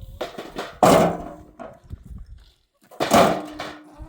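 Two heavy thuds about two seconds apart, each dying away within half a second: stones being worked on a dry-stone wall.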